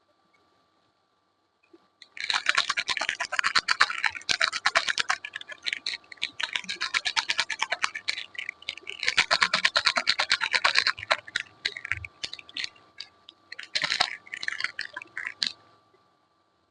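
Close-up crackling and scratching from soap and its wrapping being handled, a dense run of tiny sharp clicks that comes in several loud spells, starting about two seconds in and stopping shortly before the end.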